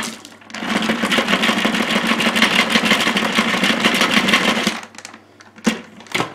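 Dyson DC40 dust bin being emptied: dirt and grit rattle out in a dense stream for about four seconds, followed by two short clicks near the end.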